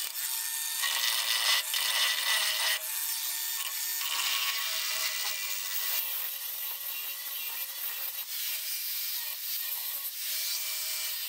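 Angle grinder grinding into a cracked cast iron exhaust manifold, cutting a groove along the crack to prepare it for a weld repair. It runs without a break, and its loudness shifts every second or two as the disc bears harder or lighter on the metal.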